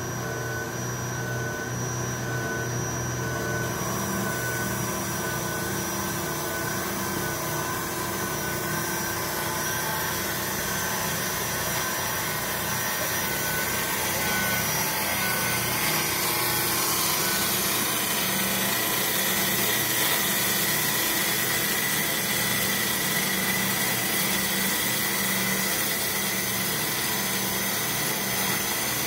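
Cosen C4 band saw blade cutting through a 72.2 mm round bar of SAE 304 stainless steel with coolant flowing: a steady machine hum under a cutting hiss. The hiss grows louder about four seconds in and again about halfway through.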